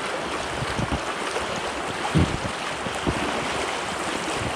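River water rushing in a steady hiss, with a couple of dull low thumps about two and three seconds in.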